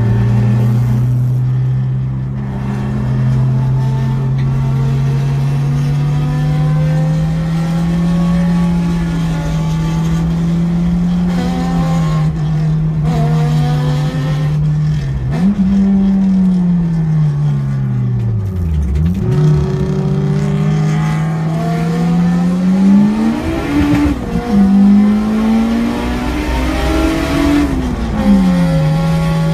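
Turbocharged Acura Integra Type R engine under hard track driving, heard from inside its cabin. The pitch climbs steadily for about ten seconds, falls away to a deep low about two-thirds of the way through, then rises and drops twice in quick succession before settling steady near the end.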